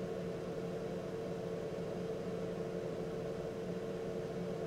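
Quiet, steady hum from a computer case close to the microphone, two held tones over a faint hiss: the room's background noise, with no speech.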